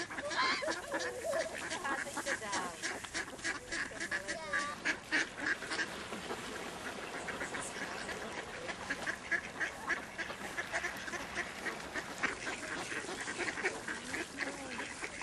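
A flock of ducks and other waterbirds calling, many short quacks overlapping without a break.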